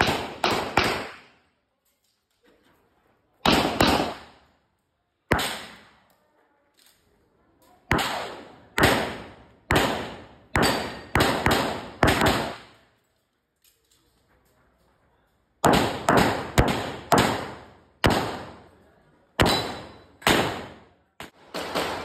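Handgun shots fired in quick doubles and short strings, about two dozen in all, with pauses of one to three seconds between strings. Each shot is a sharp crack with a short echo tail.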